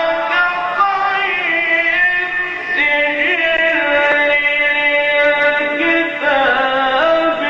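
A man's voice chanting in long held notes, ornamented with gliding turns between them, in the style of Quran recitation, with a dull, band-limited sound from an old recording.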